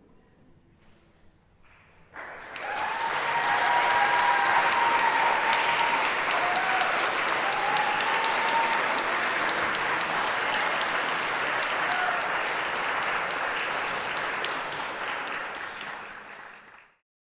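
Audience applauding in a church after about two seconds of near silence; the applause fades and then cuts off suddenly near the end.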